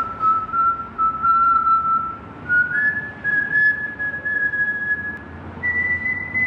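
A person whistling a slow tune in long held notes, the pitch stepping upward over the first few seconds, over steady background noise.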